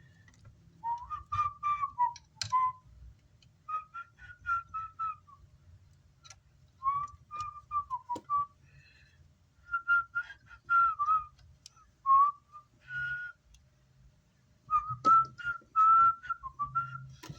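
A person whistling a tune to himself in short wavering phrases with pauses between them, with a few light clicks.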